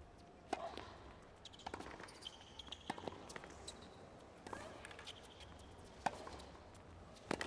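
Tennis ball struck by rackets in a rally on a hard court: a sharp serve pop about half a second in, then return and groundstroke hits roughly every one to one and a half seconds, with fainter knocks between.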